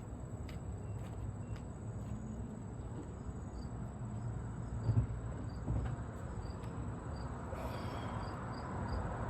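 Crickets chirping in a steady, evenly spaced rhythm over low background noise, with a few faint knocks and a dull thump about five seconds in.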